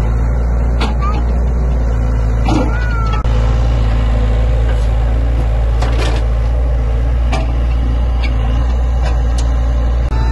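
Sany excavator's diesel engine running at a steady low drone while it works, with a few short knocks from the machine.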